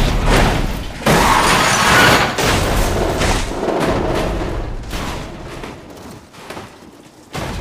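Film sound effects of a race car crash: the car tumbling with repeated impacts and scraping, and debris scattering across the track, over music. The crash noise dies away over the last few seconds, with one more hit near the end.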